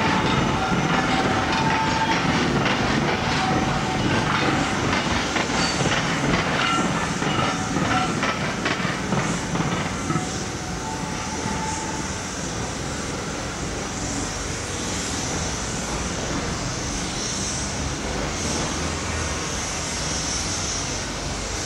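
Class 303 electric multiple units running slowly over station pointwork: wheels clattering over rail joints, with short squeals from the wheels in the first half. About ten seconds in the sound drops to a quieter, steadier rumble with a hiss.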